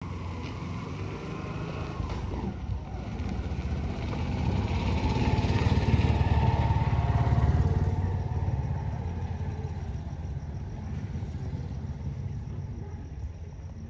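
A motor vehicle passing: a low engine rumble that grows louder to a peak about six to seven seconds in, then fades away.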